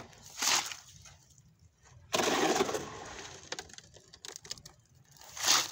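Shovel scraping and scooping wet concrete in a wheelbarrow pan: a short scrape, then a longer, louder one about two seconds in, and another short scrape near the end.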